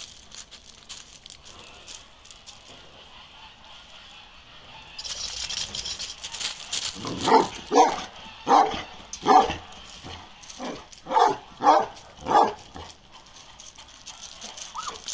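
A large Karakırçıl shepherd dog barking, a run of about seven deep barks in quick succession in the second half.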